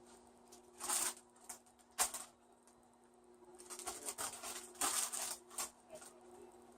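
Plastic bag of broccoli florets rustling and crinkling as the florets are tipped out and handled. It comes in short bursts, with a sharp click about two seconds in and a longer spell of rustling in the second half.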